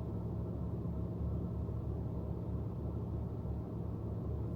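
Steady low rumble and hum of a car heard from inside the cabin, with no change in level.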